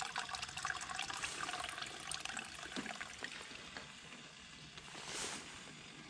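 Hot water running from the brass tap of a stainless steel water heater into a stainless steel mug, the trickle slowly fading over the first few seconds. A brief hiss about five seconds in.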